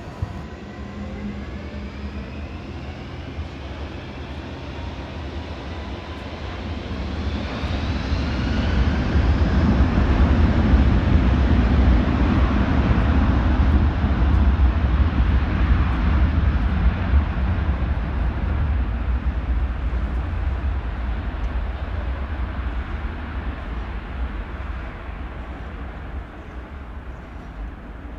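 Airbus A330 jet engines spooling up with a rising whine, then a deep rumble that builds to its loudest about ten to fourteen seconds in and slowly fades away, as on a takeoff run passing by.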